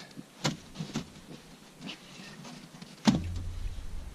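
Pieces of firewood knocking together as they are set down: a few sharp knocks, then a louder thump about three seconds in, followed by a low rumble.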